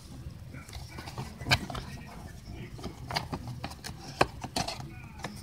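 Handling sounds: a cardboard trading-card box being taken out of a storage box, a scatter of sharp taps, knocks and rustles, the loudest about a second and a half in, over a low room hum.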